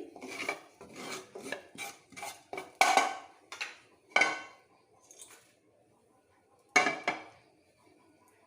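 Metal spoon clinking and scraping against a cooking pot, a quick run of clinks as fried tempering is added to the khichdi, then a pause and one last loud knock.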